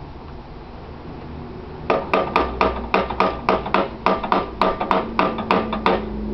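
A hammer tapping rapidly on the metal engine of a Qualcast Suffolk Punch cylinder mower, about twenty sharp ringing strikes at some five a second. They start about two seconds in and stop shortly before the end.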